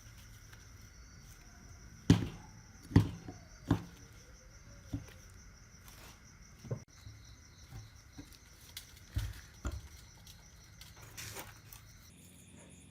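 Irregular knocks and taps from tools and parts being handled at a workbench, the loudest three close together a few seconds in, the rest lighter and spread out, over a faint steady high tone.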